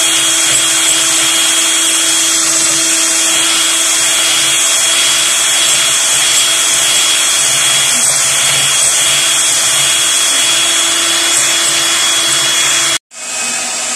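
Imaco electric hand mixer running steadily, its twin wire beaters whisking eggs in a glass bowl as they are beaten until pale. It gives a continuous motor whine over a whirring hiss, which drops out for an instant near the end.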